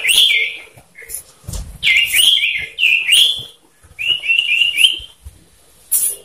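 Male common iora (sirtu) calling loudly in runs of short, sliding whistled notes, with four quick rising whistles in a row about four seconds in.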